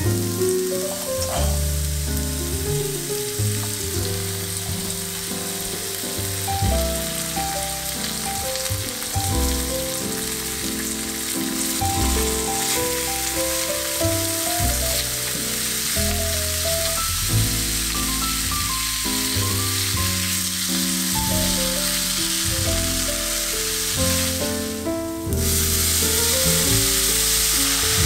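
Julienned carrot and sliced lotus root sizzling as they stir-fry in oil in a frying pan, a steady hiss with a short break near the end, after which it comes back a little louder. Soft background music plays underneath.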